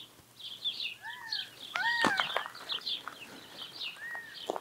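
Birds calling: a rapid run of high chirps, with a few arched whistled calls that rise and fall. Two or three sharp clicks come about two seconds in and again near the end.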